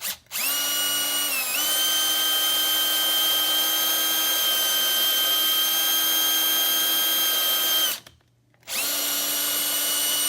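Electric drill boring a hole through a wooden cabinet drawer front: a steady motor whine that dips in pitch about a second and a half in as the bit bites, runs until about eight seconds, stops, then starts again near nine seconds. The bit has not yet gone all the way through the wood.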